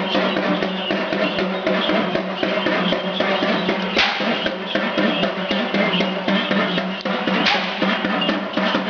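Dhol drumming in a fast, dense rhythm over a steady low tone, as devotional Kali Mai background music.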